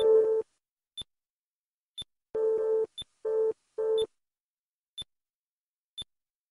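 Electronic time-lapse sound design: a short high tick once a second as the month counter advances, and short low electronic bleeps, each sounding a US nuclear test as it flashes on the map. One bleep comes at the start, then three in quick succession between about two and a half and four seconds in.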